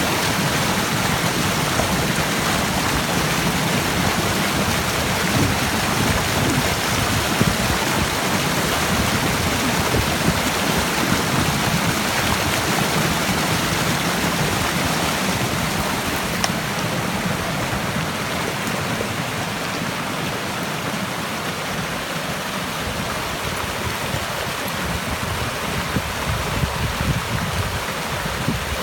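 Stream water rushing steadily, easing off slightly a little past halfway.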